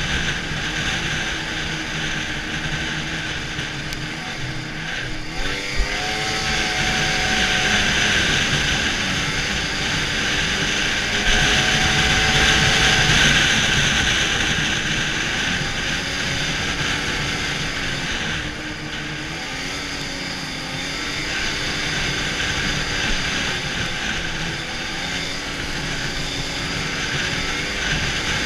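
Arctic Cat snowmobile engine running under way, heard from on board, its pitch rising and falling with the throttle several times, climbing about six seconds in and again near eleven seconds, easing off around eighteen seconds. A steady hiss runs underneath.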